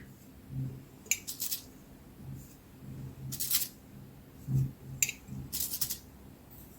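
A paintbrush making short, separate strokes on a glass jar: about five brief, scratchy brushings, spaced a second or so apart. The brush is laying a top coat of paint over crackle varnish.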